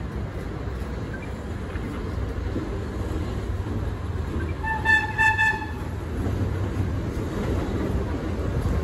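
R32 subway train approaching on the rails with a steady low rumble that grows louder as it nears. About halfway through, its horn sounds in one brief blast of about a second.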